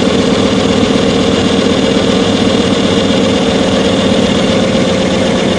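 Reciprocating gas compressor running, a loud steady machine noise with a fast, even rhythm.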